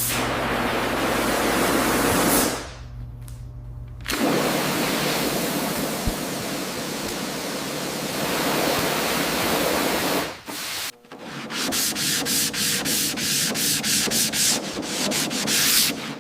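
Sanding on a car's bodywork: long stretches of steady abrasive rubbing, then quick back-and-forth strokes, about four a second, from about eleven seconds in.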